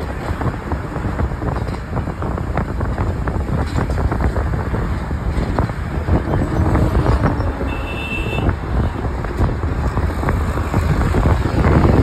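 Steady low road and engine rumble heard from inside a moving vehicle, with frequent short rattles and wind through an open window. A brief faint high tone sounds about eight seconds in.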